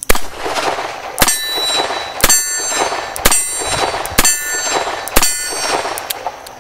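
Colt Diamondback .38 Special revolver with a 4-inch barrel fired double action: six sharp shots about a second apart, each followed by a ringing echo.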